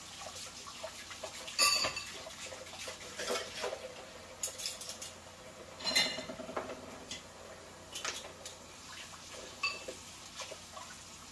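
Dishes and utensils clinking and knocking against each other in a kitchen sink, with several sharp clatters; the loudest come about two seconds in and about six seconds in.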